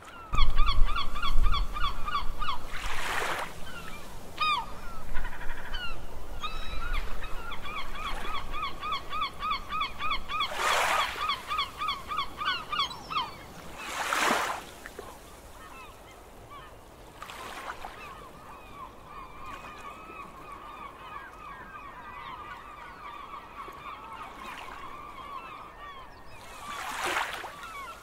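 A flock of birds calling: a dense run of short, quickly repeated honking cries that drops away after about thirteen seconds to fainter, steadier calling. A few brief whooshes come through along the way.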